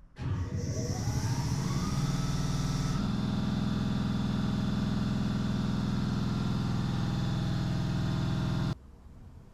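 A motor starts, its pitch rising as it spins up, then runs steadily before cutting off suddenly near the end.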